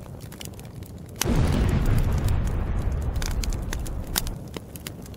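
Explosion sound effect: a sudden deep boom about a second in that rumbles and slowly fades over the next few seconds, with irregular crackling throughout.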